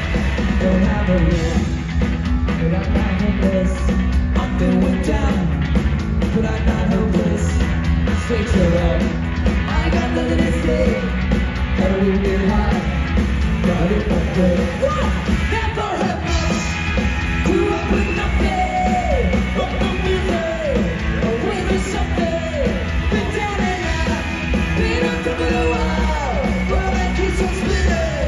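Ska-punk band playing live through a venue PA, with electric guitars, bass, drums and sung vocals.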